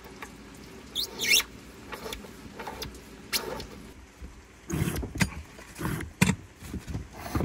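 Handling noises around heavy battery cables in rubber floor grommets: irregular rubbing, scraping and knocks, with a couple of short rising squeaks about a second in and a cluster of louder knocks later on.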